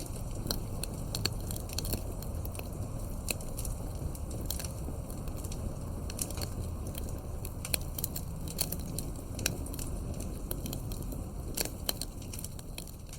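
Wood fire burning, with frequent sharp crackles and pops over a steady low rumble of flames; it begins to fade out at the very end.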